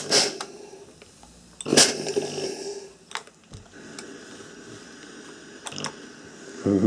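Rowenta Steamforce steam iron shooting steam: a loud hiss at the start and another about two seconds in, with a low buzz beneath, then a few fainter spurts as the iron is worked over the cloth.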